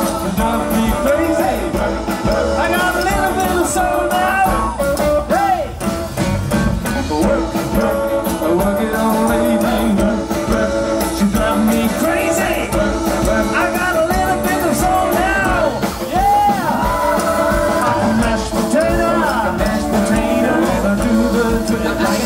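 Live rock 'n' roll band playing: electric guitar, upright bass, drums and keyboard, with singing.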